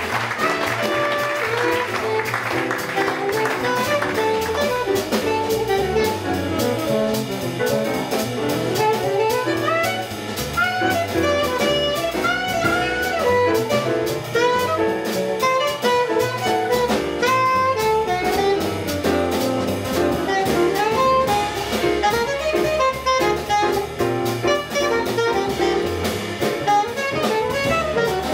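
Live jazz quartet playing: alto saxophone lines over piano, double bass and a drum kit with steady cymbal strokes, heard from the back of a crowded room.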